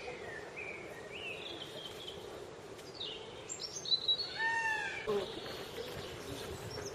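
Birds chirping and calling: short whistled notes and rising chirps, with a louder arched call about four and a half seconds in, over a steady outdoor background hum.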